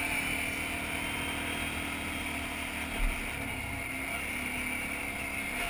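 ATV engine running steadily while the four-wheeler is ridden, with a brief low thump about three seconds in.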